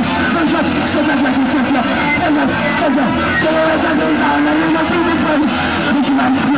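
Hardcore punk band playing live: distorted electric guitar and drums, loud and dense without a break.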